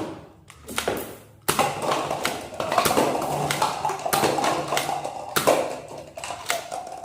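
A dense run of sharp plastic clicks and knocks from a toy gun being worked and handled, starting with a single click and thickening about a second and a half in.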